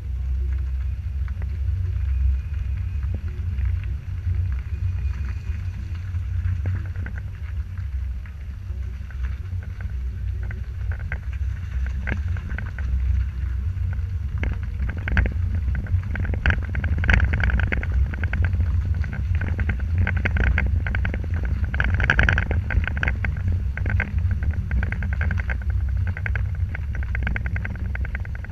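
A Pontiac car driving: a steady low rumble of engine and road noise, with a scatter of clicks and crackles through the second half.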